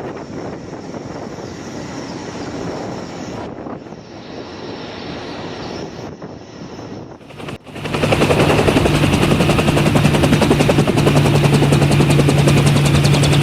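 Helicopter noise from two clips. First a moderate, even rush of rotor and wind noise. About seven and a half seconds in it cuts to a much louder, closer helicopter with a steady engine drone and a fast, even pulsing of the rotor.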